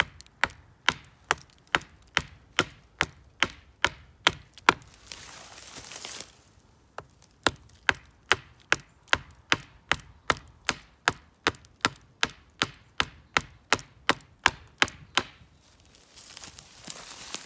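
Stone axe chopping into the trunk of a small black walnut sapling: quick, even blows, about two and a half a second. Twice the chopping stops for a second or two of rustling.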